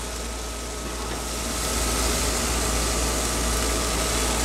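Chicken wings sizzling on a gas grill over a steady low rumble, growing a little louder about a second and a half in.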